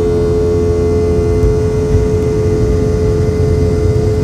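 Boeing 717 cabin with its Rolls-Royce BR715 turbofan engines running, heard from inside: a steady engine hum with one constant tone over a heavy low rumble of the airliner rolling along the ground.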